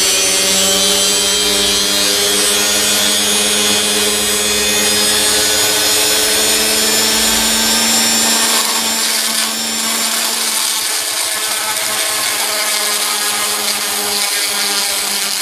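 Small high-speed rotary tool running with a steady whine while grinding out the camera's old plastic lens cover. It gets a little quieter after about eight seconds.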